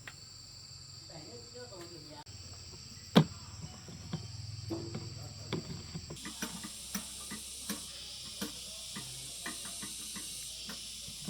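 Steady high insect chirring, a single sharp knock about three seconds in, then a hiss with scattered irregular clicks and taps from about halfway.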